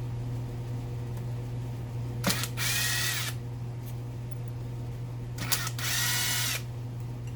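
Power drill-driver running in two short bursts of about a second each, each starting with a click and a rising whine, backing Torx screws out of the gas valve's aluminium housing.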